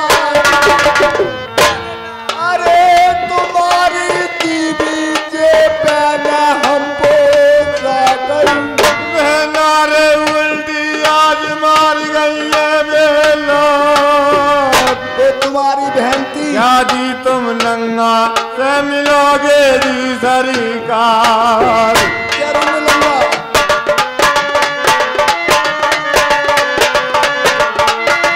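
Indian folk music performed live: a man sings a wavering, drawn-out melody over a steady run of hand-drum strokes. The drumming grows busier in the last few seconds.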